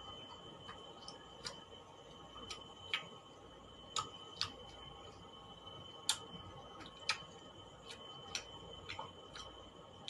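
Crispy fried milkfish (bangus) being chewed: sharp, irregular crunching clicks, one or two a second, over a faint steady high-pitched tone.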